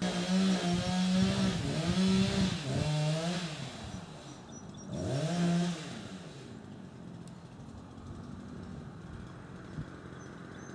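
Chainsaw running at high revs for the first three and a half seconds, its pitch dropping and climbing with the throttle and load, then revved once more around five seconds in before settling to a quieter running sound.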